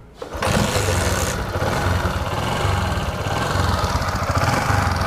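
Bajaj Discover motorcycle's single-cylinder four-stroke engine starting about a third of a second in, then idling steadily. The tappet ticking is gone after the rocker clearance was adjusted.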